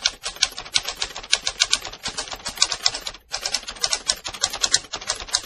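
Rapid keystroke clicking in quick runs, several sharp clicks a second, with short breaks about two seconds in and again just after three seconds in.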